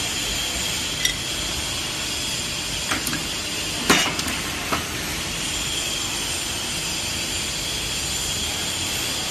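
Semi-automatic hydraulic tube flattening and punching machine working a galvanized steel tube. A steady hiss with a faint high whine runs under a few sharp metallic clinks and knocks, the loudest about four seconds in, as the tube end is set in the die and pressed.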